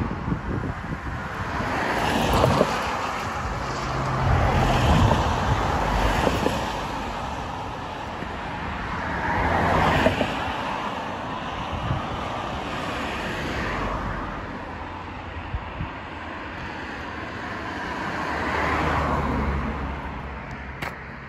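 Road traffic passing by: several vehicles go past one after another, each swelling and fading over a few seconds.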